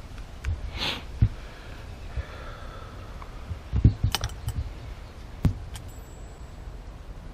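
Metal brake caliper parts clinking and knocking as they are handled, a few sharp knocks with a cluster of them about four seconds in, and a short hiss about a second in.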